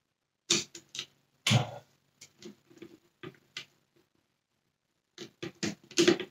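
Sharp, irregular clicks and knocks of screws and a hand screwdriver working against the plastic housing of a Dyson Cinetic Big Ball vacuum cleaner as screws are fitted. The loudest knock comes about a second and a half in, with a cluster of clicks near the end.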